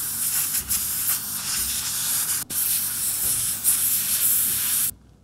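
Airbrush blowing a steady, hissing jet of air over a small metal camera part. The hiss breaks off for an instant about halfway through and stops abruptly shortly before the end.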